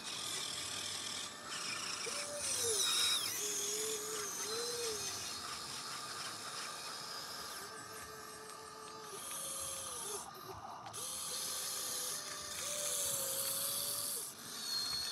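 Electric motors and gearboxes of a radio-controlled toy excavator whining and chattering as it works its arm and bucket in sand and swings. The whine starts and stops every second or two, bending in pitch at each start and stop.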